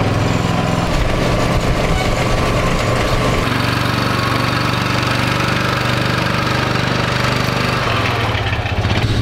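Engine running steadily during a push start of a 360 sprint car, with a side-by-side pushing the car to fire it. The engine note shifts about a third of the way in and again near the end.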